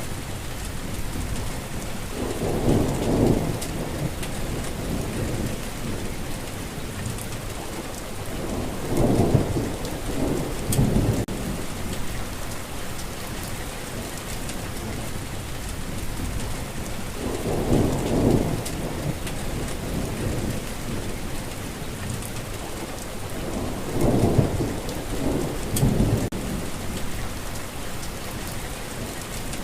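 Steady heavy rain hissing, with a low rumble of thunder rolling in four times, each lasting a second or two.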